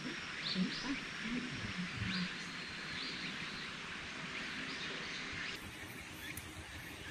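Outdoor summer ambience: a steady chorus of wild animals, with birds chirping now and then over it. Faint low voices are heard in the first couple of seconds, and the sound drops a little and changes about five and a half seconds in.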